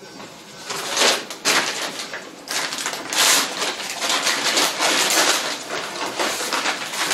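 Irregular hissing and rustling from oxygen tubing and airway gear being handled as a nasal cannula is fitted and hooked to oxygen.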